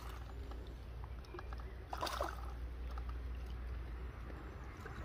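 A small hooked fish splashing at the lake surface as it is drawn over a landing net and lifted, with water sloshing around the net and a louder splash about two seconds in. A low steady rumble runs underneath.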